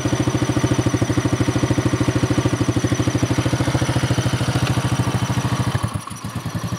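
Avenger 150 ATV's 150 cc engine idling with a fast, even beat, which turns uneven and quieter near the end.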